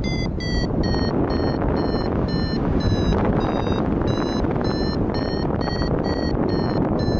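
Flight variometer beeping its climb tone, about two short beeps a second, over a steady rush of wind on the microphone: the glider is climbing in lift.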